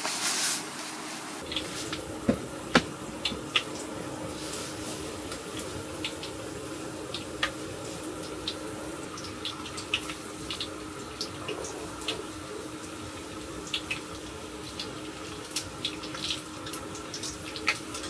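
Food cooking on the heat, sizzling: a steady hiss with many small scattered pops and crackles over a faint steady hum.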